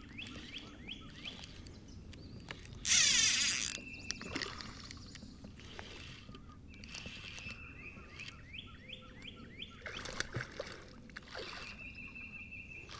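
Spinning reel ticking in short repeated runs while a hooked largemouth bass is fought on light tackle, the fish pulling line against the drag. One loud splash about three seconds in as the fish thrashes at the surface.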